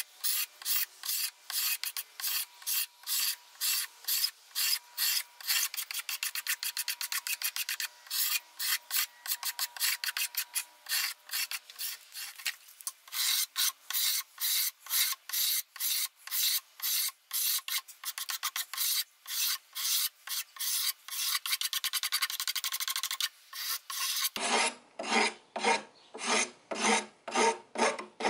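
Rapid, even scraping strokes of a hand-held blade shaving a wooden axe handle, about three strokes a second, slowing to about two a second near the end.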